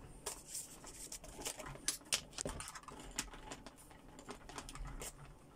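Irregular light clicks and taps, a few a second with a louder cluster about two seconds in, from hands untangling and handling the thin cable of a USB endoscope camera.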